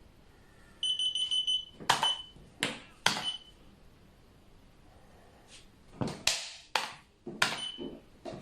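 Sharp clacks of xiangqi pieces set down hard on the board, in two quick clusters, with a short run of rapid high electronic beeps about a second in and a brief beep after some of the clacks.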